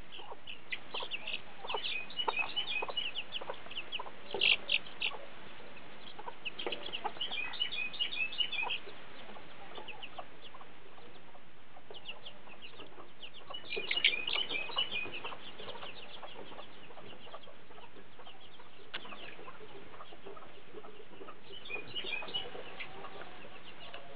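A flock of bantam chickens, several of them half-grown, peeping and clucking in scattered bursts of short high chirps, with quieter spells between the bursts.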